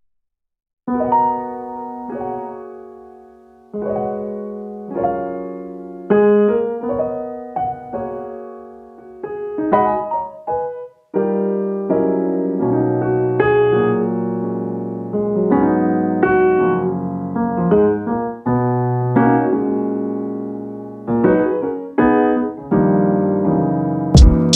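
Background piano music: chords struck and left to ring and fade, starting about a second in. A drum beat cuts in at the very end.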